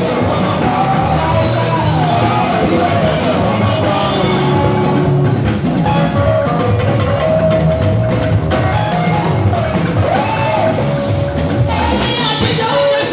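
A woman singing gospel praise through a microphone over loud amplified band accompaniment with a steady beat.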